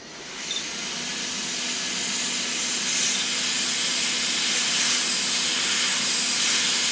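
Hot air rework gun blowing a steady hiss of hot air, with a faint low hum underneath, coming up to full flow in the first half second. It is melting the solder to desolder a push switch from an LED lamp's circuit board.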